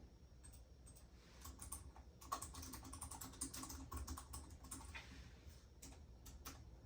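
Typing on a computer keyboard: a quick, faint run of key clicks, densest through the middle and sparser at the start and end.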